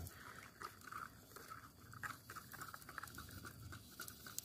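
A thin twig stirring black coffee in a bamboo cup, scraping against the bamboo in faint, repeated strokes, about three a second.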